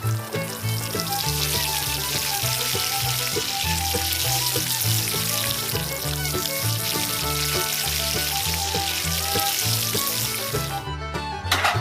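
Background music with a stepping bass line, under a steady crackling hiss like frying that cuts off near the end.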